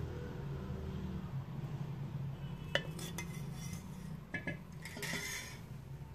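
Steel spoon scraping and clinking against a steel pan as thick custard is scooped out into a ceramic bowl, with a few sharp clinks and a short scrape in the second half. A steady low hum runs underneath.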